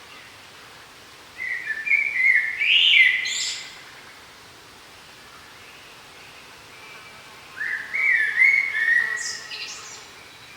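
A songbird singing two phrases about six seconds apart, each about two seconds of quick warbling notes that climb to higher notes at the end, over a faint steady hiss of forest background.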